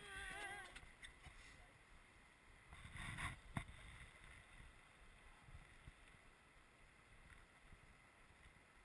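Faint river rafting sounds, mostly a low rumble. There is a brief voice at the start, and about three and a half seconds in a short rush of noise ends in a sharp knock.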